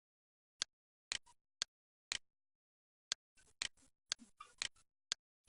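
Computer mouse clicking: about a dozen short, faint clicks at irregular intervals, some in quick pairs and runs.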